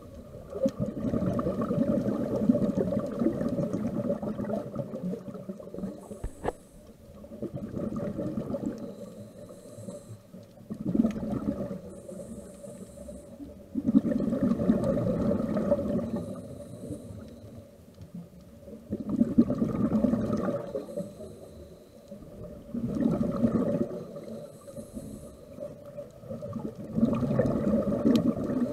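Scuba diver breathing through a regulator underwater: a short hiss on each inhale, then a loud rush of exhaled bubbles, about seven breaths repeating every four seconds or so.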